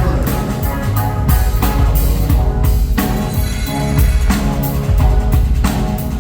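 Live band playing an instrumental passage: a drum kit keeps a steady beat of bass drum and snare hits under sustained bass notes.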